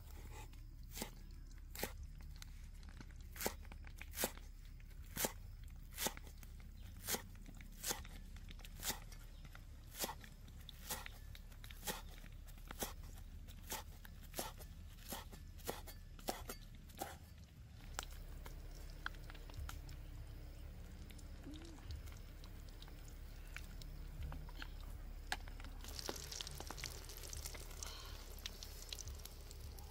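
A steady series of sharp knocks, a little more than one a second, stopping about 17 seconds in; after that come softer, irregular clatter and rustling, with a short hiss a few seconds before the end.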